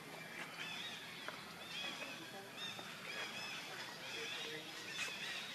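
Macaques giving short, high-pitched squealing calls over and over, each call rising and falling in pitch.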